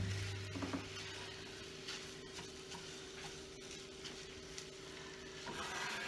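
Ground beef frying faintly in a nonstick skillet as a spatula stirs and breaks it up, with light scrapes and ticks against the pan, over a steady hum.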